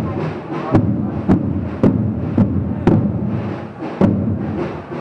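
Parade drums beating a steady march rhythm, about two strong beats a second, each strike ringing low.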